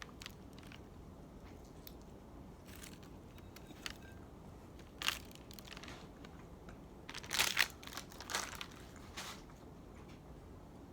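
Biting into and chewing a beef and bean burrito close to the microphone: scattered short crunchy, crackly mouth sounds, the loudest cluster about seven and a half seconds in.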